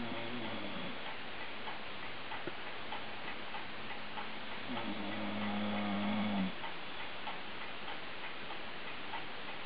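Snoring: one snore trailing off at the start and a long one about five seconds in, lasting under two seconds, with steady ticking behind them.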